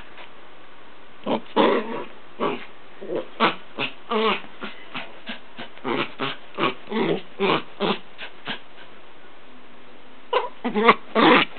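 A dog making a long run of short vocal sounds, about two a second, with a pause of over a second near the end before they start again.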